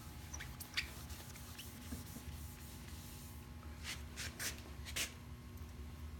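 Faint rustling and brushing as hands and a paper towel handle and wipe a wet-sanded wooden model hull. A few short strokes come about a second in and several more around four to five seconds in, over a low steady hum.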